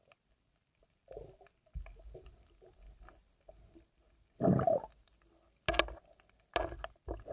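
Muffled knocks and short rushes of water on an underwater camera as the diver moves it. The loudest is a half-second rush about four and a half seconds in, with three shorter ones near the end.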